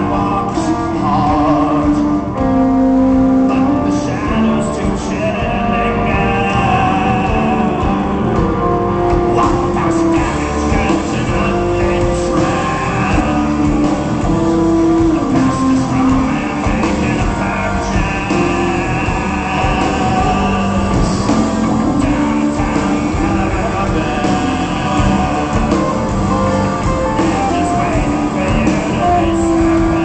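Rock band playing live in a concert hall, guitar-led, with drums and some singing, heard loud from the audience through a small camcorder's microphone.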